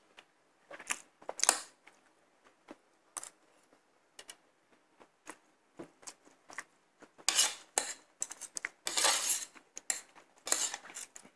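Spoon and fork clinking and scraping on a ceramic plate while eating, in irregular short strokes. A few longer, louder scrapes come in the second half.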